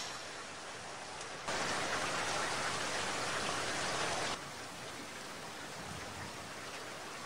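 Steady rain falling, an even hiss. It suddenly gets heavier and louder for about three seconds, about a second and a half in, then drops back just as suddenly.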